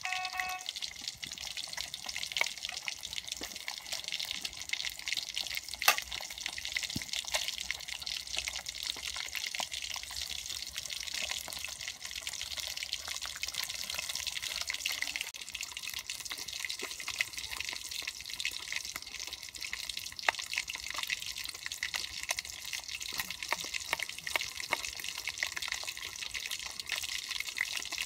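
Fish frying in oil in a wok: a steady sizzle with many small crackles. Light knife taps on a wooden cutting board come through now and then, with one sharper click about six seconds in.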